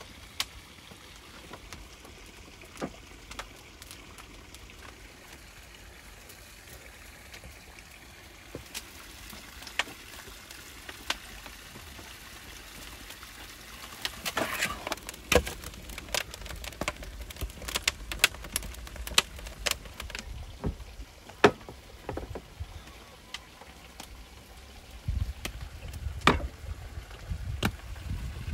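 Faint soft handling of dough being kneaded in an enamel bowl. From about halfway, a run of sharp, irregular knocks and crackles as split firewood is handled beside a burning wood-fired oven. A low rumble comes in near the end.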